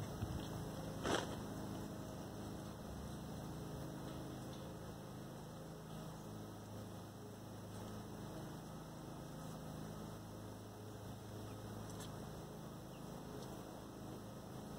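Faint steady low hum, with one short scratchy rustle about a second in and a few faint ticks later.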